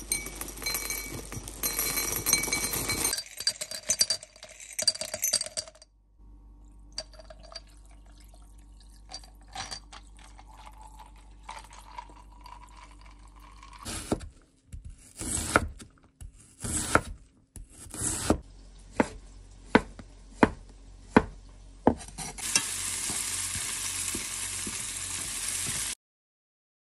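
Kitchen sounds in several short takes. The loudest is a kitchen knife chopping onion on a wooden cutting board: a run of sharp knocks in the second half, settling to about one stroke every 0.7 s. A steady hiss follows near the end.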